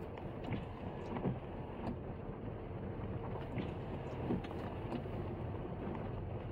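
Car driving on a wet road, heard from inside the cabin: a steady rumble of engine and tyres, with scattered light clicks and knocks.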